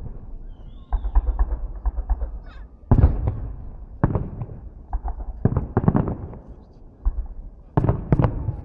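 Fireworks salute: a string of booming shell bursts, each followed by crackle, about one every second or two. The loudest come about three seconds in and near the end.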